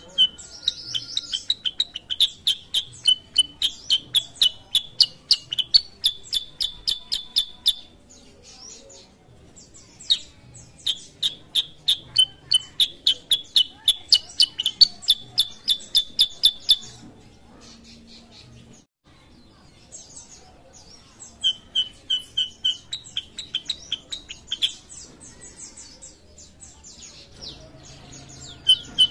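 Caged kutilang sutra bulbul singing loudly in fast runs of repeated sharp, chirping notes, about six a second. There are three long phrases several seconds each, separated by short pauses, and a new phrase starts near the end.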